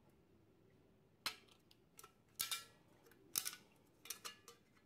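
Tin snips cutting a slit up the side of a tuna can: about six sharp metal snips starting about a second in, a few of them louder than the rest.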